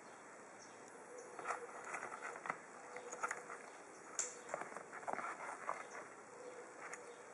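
Soft scattered clicks, taps and rustles of gloved hands handling small plastic toys and dry twigs, starting about a second in over a faint steady hiss.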